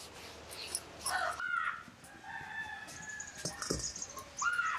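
A rooster crowing: one long, drawn-out crow, with another call starting near the end. A few light knocks sound in between.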